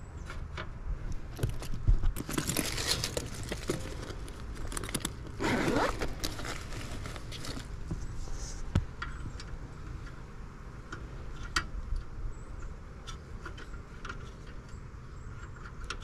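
Hands handling a manometer's rubber hose and its fittings while hooking it to a furnace gas valve: scattered small clicks and rattles, with a rustling stretch about two to four seconds in and a louder swish near six seconds.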